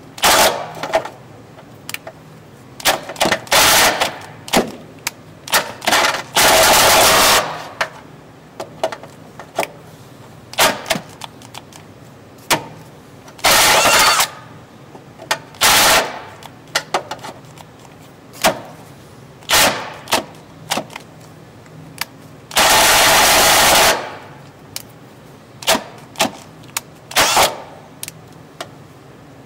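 Metal tool work under a car: many sharp clicks and knocks, broken by four bursts of a power tool running, the longest about a second and a half, near a quarter of the way in and again about three quarters through.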